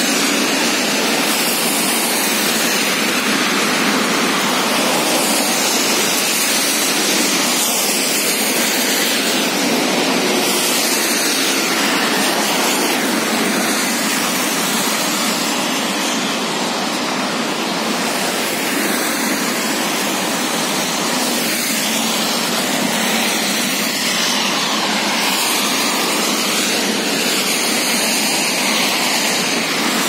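Steady rushing hiss of heavy rain mixed with car tyres swishing past on a wet multi-lane avenue.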